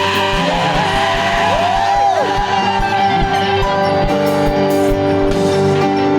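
Gospel praise and worship music with a steady low drum beat under sustained chords; a melody line slides up and down in pitch about two seconds in.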